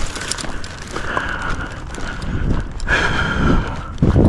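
Footsteps on a gravel dirt path in a walking rhythm, with a plastic bag rustling and fishing gear knocking as it is carried.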